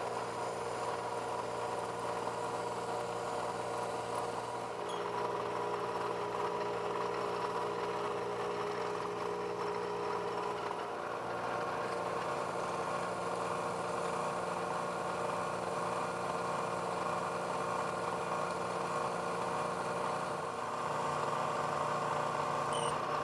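Milling machine spindle running steadily while a twist drill bores into 4140 pre-hard steel round stock, giving a continuous machine hum and whine. The hum drops slightly in pitch near the end.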